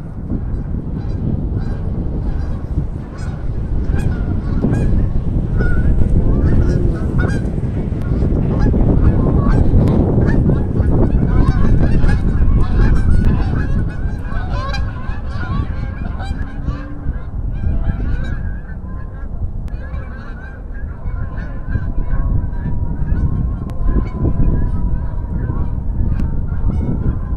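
A flock of waterfowl calling at the pond's edge, many short overlapping calls at once, as they gather to be fed bread. A constant low rumble runs underneath.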